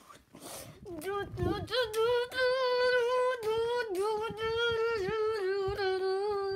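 A child's high voice singing a wordless tune in long held notes, wavering slightly and stepping down in pitch a couple of times, then stopping suddenly. A plush toy rustles and bumps against the microphone near the start.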